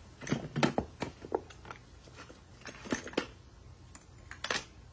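Tools and metal odds and ends clinking and clattering in a plastic toolbox as a capuchin monkey rummages through it, in irregular clusters of sharp clicks and knocks.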